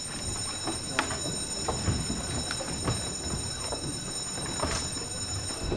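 A large class packing up and leaving at once: a steady shuffle of bags, papers and feet, with scattered small knocks and clicks.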